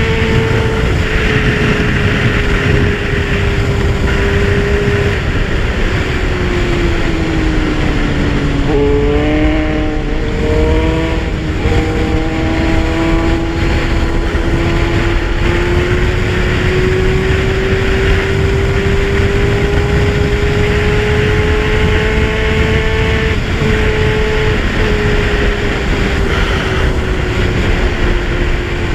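Kawasaki Z1000 inline-four motorcycle engine under way: the engine note sinks, steps through a few quick changes about a third of the way in, then climbs slowly, with another brief break later on. Heavy wind rumble on the microphone throughout.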